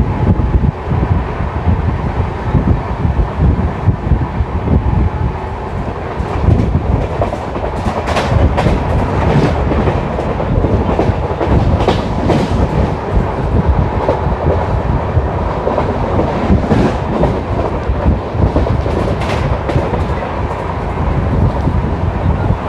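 Indian Railways passenger express heard from on board while running, a loud steady rumble with clusters of wheel clatter over rail joints, thickest a third of the way through and again near the end.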